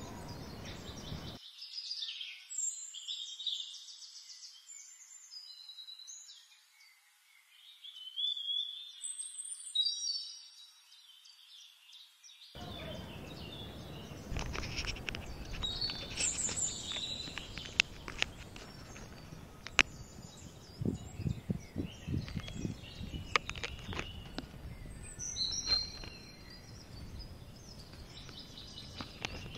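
Birds chirping and singing outdoors in a series of short, varied calls. From about halfway through there are also scattered light clicks and knocks.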